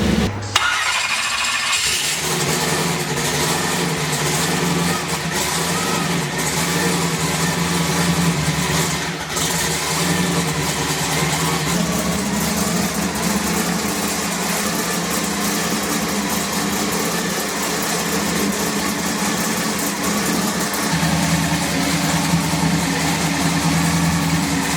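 A race car engine running steadily at idle, after an abrupt change in the sound about half a second in.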